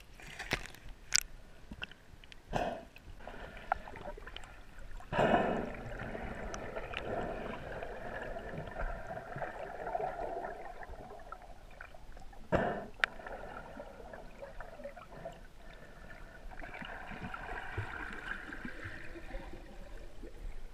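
Muffled water sloshing and gurgling heard from underwater, inside a GoPro's waterproof housing, with a few sharp knocks, the loudest about five seconds in and another around twelve seconds.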